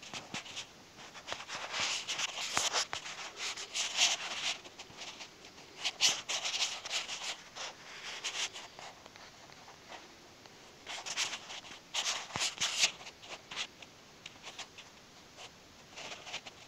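Rubbing and scraping right at the microphone, in irregular bursts with scattered sharp clicks and a few quieter gaps.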